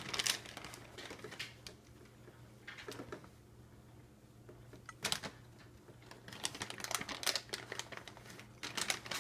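Irregular light clicks and rustles, in scattered clusters like typing, from a rocking fabric-covered baby swing with a cat moving on its seat. A faint steady hum runs underneath.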